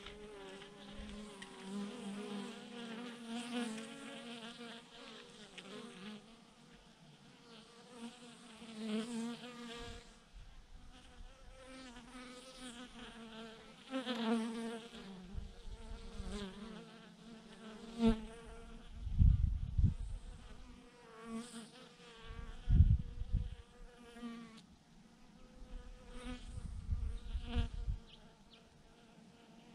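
A swarm of honeybees buzzing around their cluster on a branch, a wavering drone as single bees fly close past and away. A few low rumbles come in the second half.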